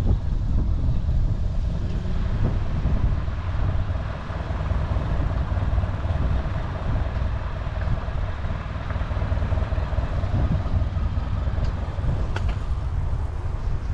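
Steady wind rumble on the microphone of a camera riding along on a bicycle, mixed with the noise of road traffic.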